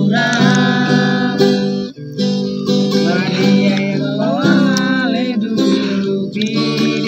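Music: strummed acoustic guitar with a singing voice.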